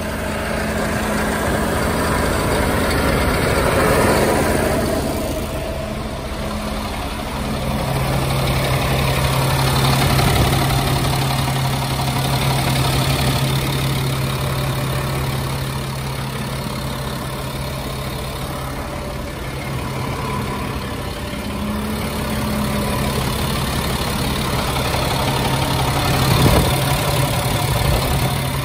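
The 2000 Ford Telsta SU36 bucket truck's engine idling steadily, heard close up at the engine bay. Its steady hum settles to a lower pitch about seven seconds in.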